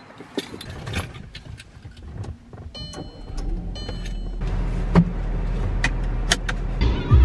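Someone settling into a car with scattered clicks and rustles, then dashboard warning chimes as the ignition comes on and the engine starts about three and a half seconds in and settles into a steady idle. A sharp click near the end is the seatbelt buckling.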